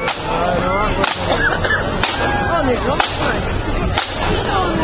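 Sharp drum strikes from a marching flute band's drums, one about every second in a slow, steady beat, with wavering voices in the background.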